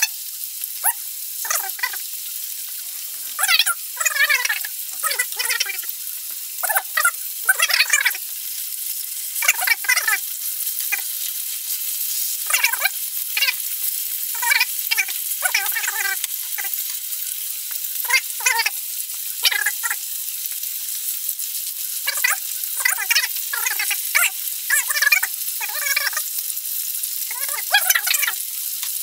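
Pork ribs frying in hot vegetable oil in a ceramic-coated frying pan: a steady high sizzle with frequent short, squeaky crackles and chirps as the fat spits and the ribs are turned with a wooden spatula.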